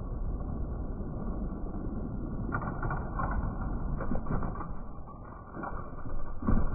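Die-cast toy monster trucks rolling down an orange plastic track with a steady rattling rumble. A run of sharp clicks and knocks comes as they reach the finish gate, and a louder clatter near the end as one tumbles over.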